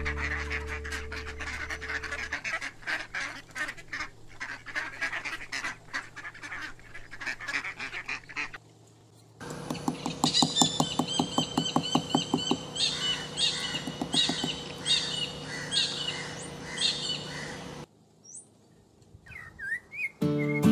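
Bird calls in two stretches that start and stop abruptly, with a short gap about nine seconds in; the second stretch is a run of quick, evenly repeated high calls, followed by a few short gliding chirps near the end.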